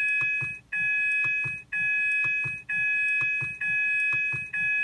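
Ford seatbelt-reminder chime: a two-tone electronic chime that repeats about once a second, each tone held just under a second with a short gap between. It signals that the driver's seatbelt is not fastened.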